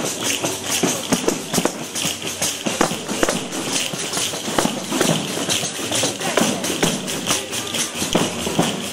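Southern Italian tammurriata folk music, driven by a fast, steady beat of frame-drum jingles and castanets.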